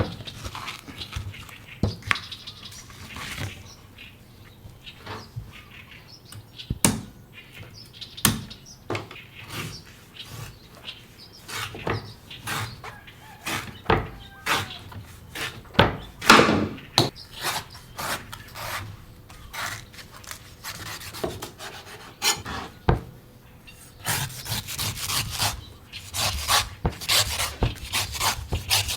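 A knife cutting a coconut: irregular sharp chops and knocks of the blade into the husk and shell. Near the end these give way to a quick run of scraping, rasping strokes.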